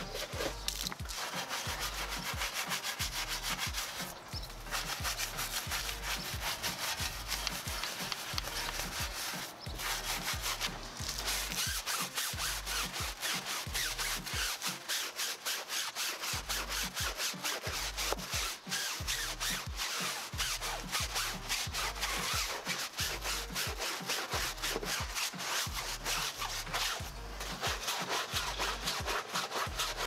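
A stiff-bristled tire brush scrubbing back and forth over a soapy tire sidewall in quick, even strokes, with a few short pauses.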